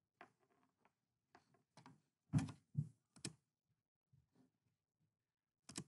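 A few short clicks or knocks in a quiet room: three close together a little over two seconds in, and another just before the end.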